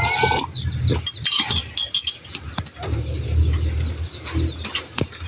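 Small birds chirping in short, quick calls over a low rumble, with a few light knocks.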